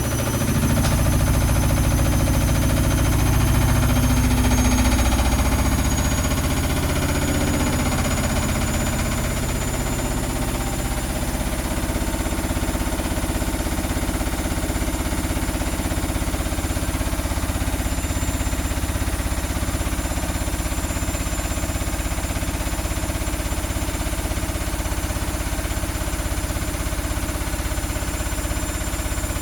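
Electrolux EW1057F washing machine in its interim spin: the motor's high whine rises slowly over the first several seconds as the drum speeds up, then holds steady. A heavy low rumble from the unbalanced load is strongest for about the first six seconds, then eases into steady running.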